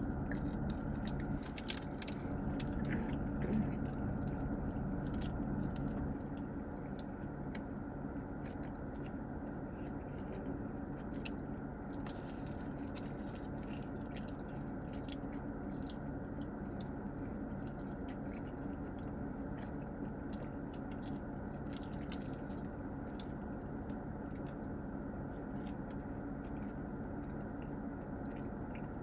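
Close chewing and biting of soft pretzel twists dipped in cheese sauce, with scattered small mouth clicks, over a steady low hum.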